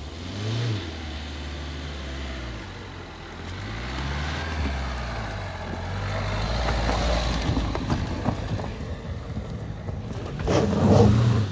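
Dacia Duster 4x4 engine working over rough ground, its pitch rising and falling with the throttle, with tyres crunching over loose stones. The loudest rev comes near the end as the car pulls away.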